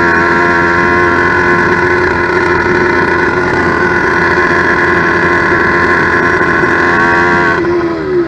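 Two-stroke motorized-bicycle engine, a roughly 90cc steel-sleeve kit on an 80cc China-doll bottom end, running steadily at raised revs on its first start while the carb is being set. Its revs fall away sharply near the end.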